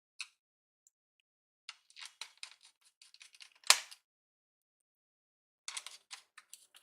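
Quick runs of light clicks and ticks from a small screwdriver and screws at the plastic underside of a laptop as its screws are fastened, with one sharper click a little past halfway and short silent gaps between the runs.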